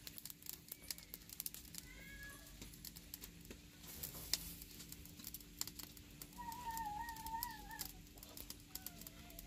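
An animal making drawn-out, wavering calls: a faint one about two seconds in and a louder one lasting over a second near the middle, over scattered light clicks.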